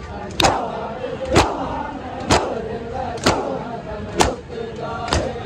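A large group of men doing seena zani (matam), striking their chests with open hands in unison: six sharp collective slaps about once a second. The crowd's voices call out between the strikes.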